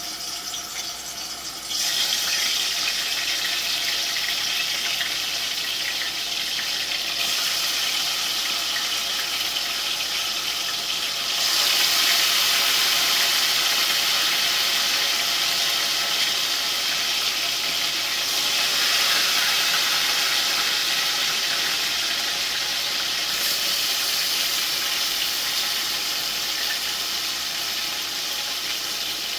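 Chicken back pieces frying in hot oil in a pot, a loud, steady sizzle that jumps up about two seconds in.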